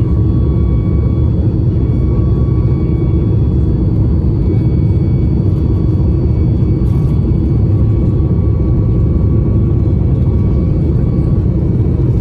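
Steady cabin roar inside a Boeing 737 MAX airliner: the CFM LEAP-1B jet engines and rushing airflow make a dense, unchanging low rumble, with a few faint steady whines above it.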